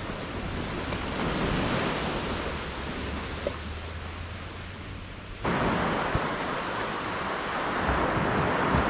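Small waves breaking and washing up a sandy beach, a steady rush of surf with some wind on the microphone. The rush gets louder suddenly about five and a half seconds in, and a couple of light knocks come in the second half.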